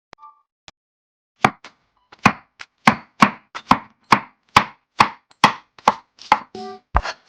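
Small kitchen knife chopping food on a miniature cutting board: a steady run of sharp strokes, about two to three a second, starting about a second and a half in.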